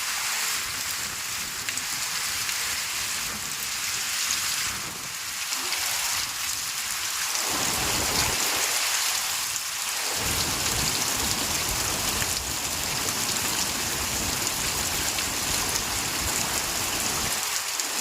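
Heavy rain falling steadily in a storm, a dense hiss. From about seven and a half seconds in a deeper rushing rumble joins it and runs under the rain for most of the rest, easing briefly around ten seconds.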